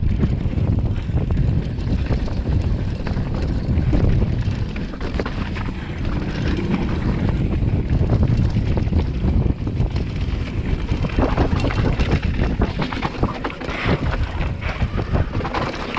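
Wind buffeting a chest-mounted action camera's microphone at speed on a fast mountain-bike descent, over the rumble and rattle of a Commencal Meta HT hardtail's tyres and frame on rough dirt and rocks. The clattering of knocks grows busier in the last few seconds.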